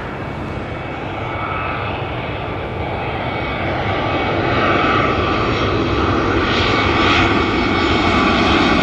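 Airbus A320's IAE V2500 jet engines on final approach, a rumble with a whining tone, growing steadily louder as the airliner closes in.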